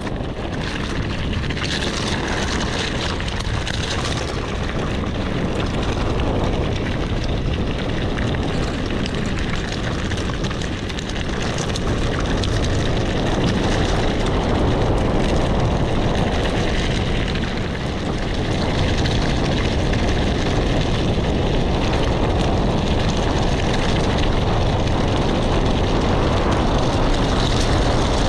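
Mountain-bike tyres rumbling over loose gravel on a fast descent, with wind rushing over the microphone, a steady loud noise with no breaks.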